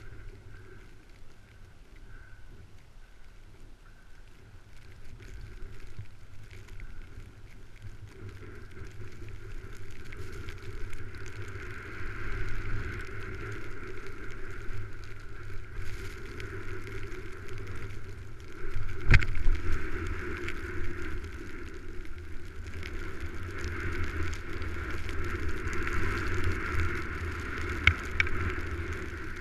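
Wind rushing over the microphone and skis hissing over snow on a downhill run, growing louder as the skier picks up speed. A single sharp knock about two-thirds of the way through is the loudest moment.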